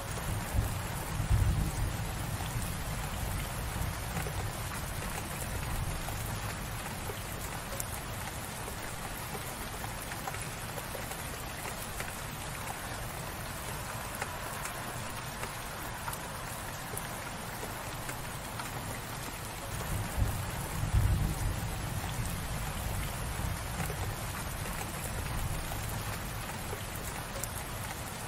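Gentle, light rain falling steadily on a surface, an even patter of drops. Two stretches of low rumble come through beneath it, about a second in and again about twenty seconds in.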